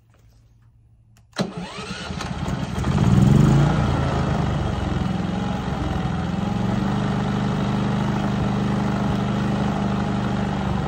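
Cummins P4500 inverter generator starting: it catches suddenly about a second in, surges up to its loudest briefly, then settles into a steady idle.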